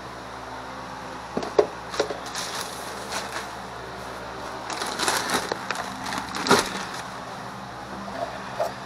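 Plastic storage bins, lids and jugs being handled and knocked against each other: a few sharp clacks early on, then a busier stretch of knocking and rustling with one loud clack, over a steady low hum.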